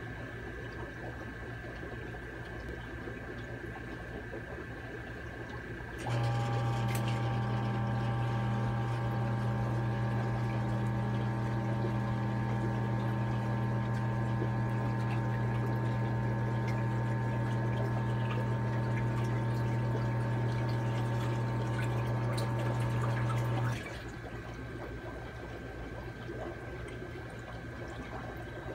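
A steady electrical hum. A much louder machine hum, with several steady tones over it, switches on about six seconds in and cuts off suddenly about eighteen seconds later.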